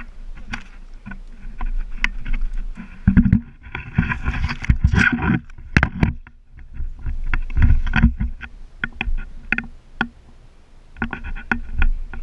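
Irregular knocks, bumps and rustling on a camera strapped to a dog as it carries a stick through long grass. There is a quieter stretch about ten seconds in.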